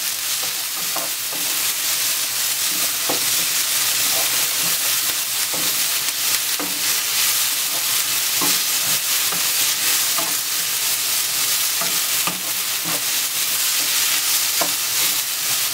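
Sliced onion, garlic, sweet peppers and spring onion sizzling steadily in hot olive oil in a non-stick frying pan, being stirred with a spatula that scrapes and taps against the pan now and then.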